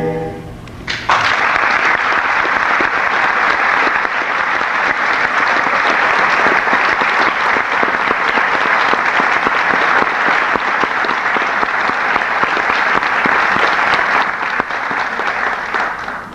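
Theatre audience applauding at the end of a choir's song, starting about a second in and dying away near the end.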